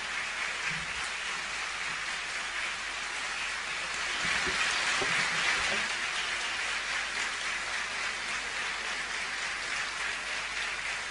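A large seated audience applauding, swelling louder about four seconds in and then easing back.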